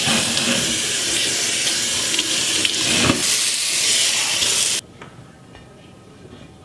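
Kitchen faucet running onto an enameled cast iron braiser and lid in a stainless steel sink as they are rinsed, a steady rushing hiss. The water sound stops suddenly about five seconds in, leaving only a few faint light clinks.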